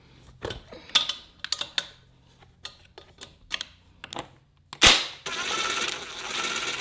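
Hand tools clicking and clanking while the exhaust is taken off a Kawasaki KX100 dirt bike, then a sharp clank a little before the five-second mark followed by about two seconds of steady rasping noise.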